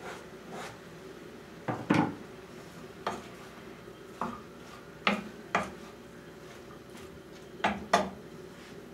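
Wooden spoon stirring in a cooking pot on a gas stove, knocking against the pot about eight times. Several of the knocks come in quick pairs, and the loudest are about two seconds in and near the end.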